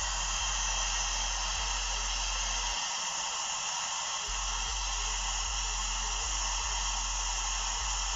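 Steady hiss of a gas soldering torch flame, heating a brazed joint to unsolder a refrigerator's filter-drier from the condenser line.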